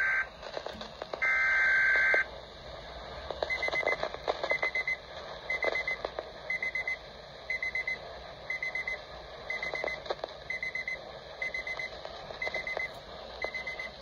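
Weather alert radio sounding an alert: two short bursts of steady high tone near the start, then the radio's alarm beeping in quick short pulses about once a second.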